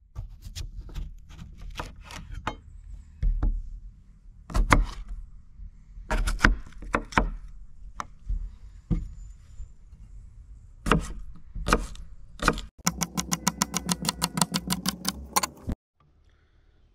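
Chef's knife cutting potatoes on a wooden cutting board: scattered sharp knocks of the blade striking the board, then a fast run of chops, about ten a second, for a few seconds near the end, over a low steady background rumble.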